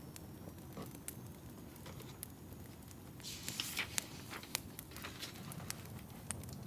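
Wood fire crackling in a fireplace: a low steady rumble with scattered sharp pops, and a brief louder hissing rustle with a cluster of pops a little past three seconds in.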